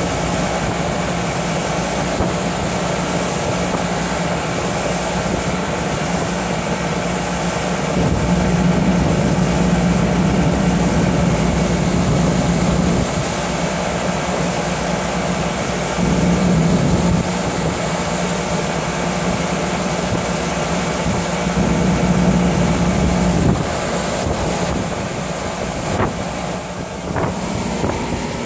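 Outboard motor of a motorboat running at speed while towing a tube, with wind buffeting the microphone and the rush of water. The engine gets louder for a few seconds at a time, three times.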